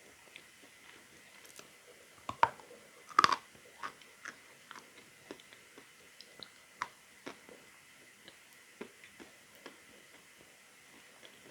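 A person biting into a piece of Annovka natural chalk and chewing it, with two loud crunching bites a couple of seconds in, then quieter scattered crunches as it is chewed.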